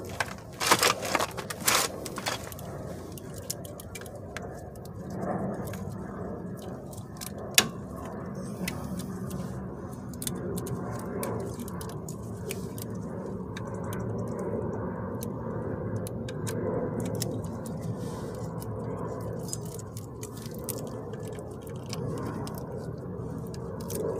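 Metal tools clinking and scraping against a car's front strut and its fittings: a burst of clatter about a second in, a single sharp click about seven seconds in, then faint ticks over a steady low rumble.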